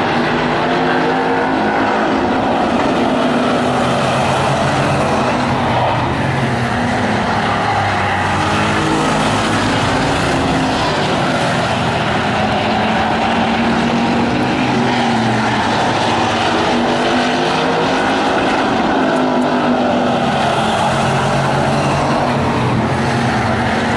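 A pack of Hobby Stock race cars lapping a short oval. Several engines overlap, their pitch rising and falling as the cars go around.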